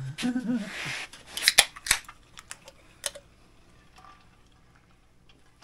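Drink cans being handled: a brief fizzing hiss, then a few sharp metallic clicks, two close together and one a second or so later.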